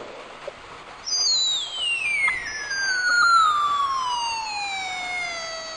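Small 8-ohm speaker driven by a 555 timer oscillator through a transistor: about a second in, a high electronic tone with overtones appears and slides steadily down in pitch to a low beep as the oscillator's frequency is lowered.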